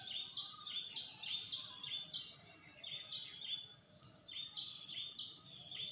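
A steady, high-pitched insect drone, with a bird repeating short chirps that drop in pitch, several a second in quick runs.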